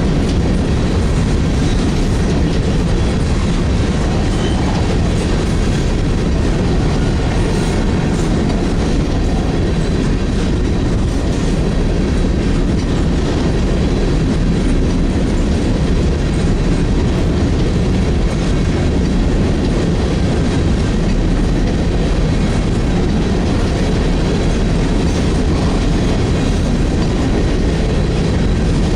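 CSX freight train rolling past close by: railcar wheels clatter over the rail joints over a steady, heavy rumble, with a faint thin wheel squeal.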